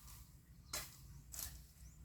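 Two chopping strikes of a hand blade into bamboo, about half a second apart, part of a steady run of chops.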